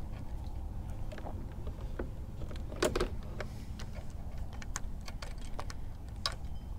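Scattered light clicks and ticks from a spinning rod and reel being worked by hand, with a louder short rustle about three seconds in, over a steady low rumble.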